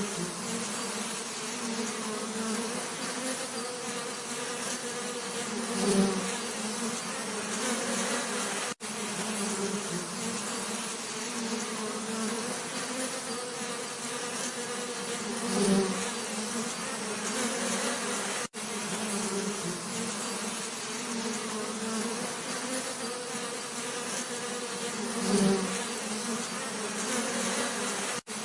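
Bees buzzing steadily, with a louder, closer buzz swelling up three times, about every ten seconds. Brief dropouts at the same spacing mark where the recording loops.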